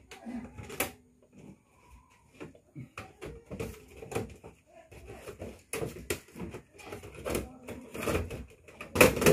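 Shoes, bags and boxes being picked up, shifted and set down on a floor: irregular knocks, clicks and rustles, with a louder thump near the end.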